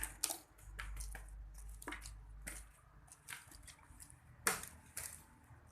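Close-up eating sounds: scattered wet smacks and clicks of a mouth chewing food, the strongest about halfway through and again shortly after.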